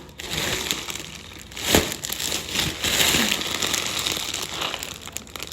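Delivery parcel packaging being crinkled and rustled as it is handled and opened, with a sharper crackle a little under two seconds in.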